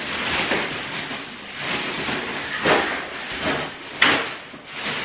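Plastic garbage bags rustling and crinkling as trash is handled and stuffed, in uneven surges, with a sharp knock about four seconds in.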